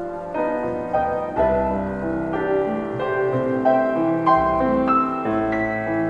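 Background piano music: a melody of notes struck one after another, about two a second, over lower held notes.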